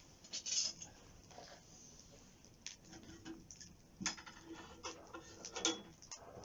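Wood campfire crackling: irregular sharp pops and snaps over a faint hiss, with louder pops about half a second in, at about four seconds and near the end.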